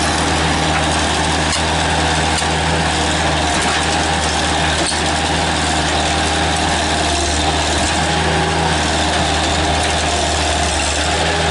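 Bobcat S185 skid-steer loader's four-cylinder diesel engine running steadily at an even pitch.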